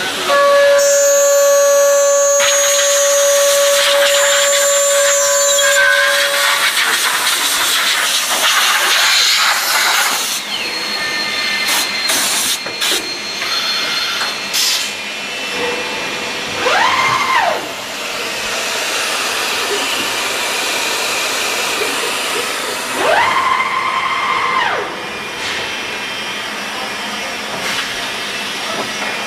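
CNC aluminium-profile machining centre running, with a steady hiss and high steady tones. Twice a whine rises, holds and falls again as the spindle speeds up and slows down, and a few sharp clicks come near the middle.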